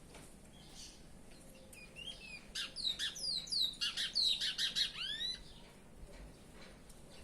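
Chestnut-bellied seed-finch (curió) singing one phrase of quick whistled notes, most of them slurring downward. The phrase starts about two seconds in and lasts about three and a half seconds, ending on a few rising, curved notes.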